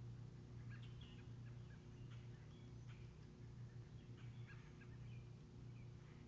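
Faint scattered chirps of distant birds calling in woodland over a steady low hum, with the level close to silence.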